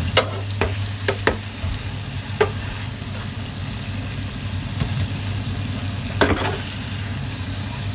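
Round balls deep-frying in hot oil in a pan, with a steady sizzle. A utensil taps sharply against the pan several times in the first two and a half seconds and once more about six seconds in, over a low steady hum.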